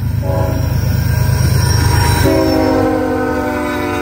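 Diesel freight locomotive's multi-chime air horn blowing two blasts, the second starting a little over two seconds in, over the low rumble of the passing train. The lead unit is NS 8098, a GE ES44AC.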